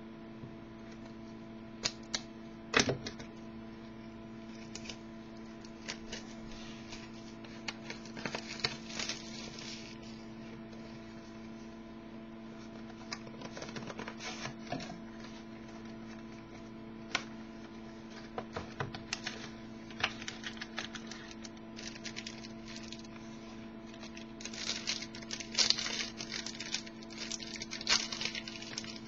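Trading-card box and its packaging being opened by hand: scattered clicks, crinkles and rustles of cardboard and wrapping, busiest near the end, over a steady electrical hum.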